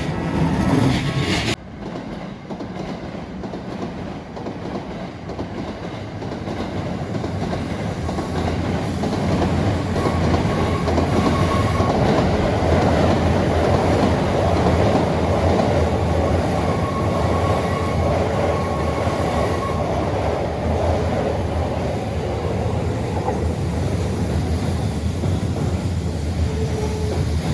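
Keikyu electric train running past on the rails: a steady rumble of wheels on track that grows louder over the first several seconds and then holds. A faint high wheel squeal comes in twice along the way.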